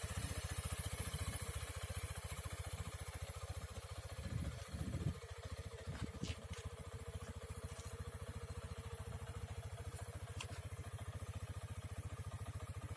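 Keeway RKS Sport 125 motorcycle's single-cylinder engine idling with an even, rapid pulse, given a brief blip of the throttle about four seconds in before settling back to idle.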